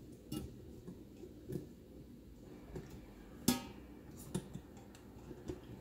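Glass yogurt jars with plastic snap lids clinking and knocking against each other and the stainless steel inner pot of an Instant Pot as they are shifted by hand. The knocks are light and scattered, with one sharper knock about three and a half seconds in.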